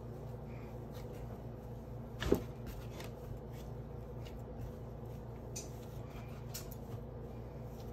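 Hands kneading and patting soft dough on a floured wooden cutting board: faint rustles and soft taps, with one sharper knock about two seconds in, over a steady low hum.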